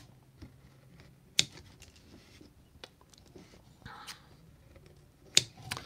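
Scissors snipping off the excess of a small string tied at a plastic action figure's waist: a few separate sharp clicks with quiet handling between, the sharpest about a second and a half in and near the end.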